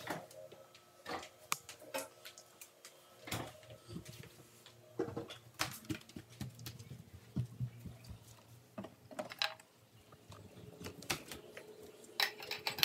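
Scattered, irregular clicks and light knocks of objects being handled and set down, over a faint steady hum.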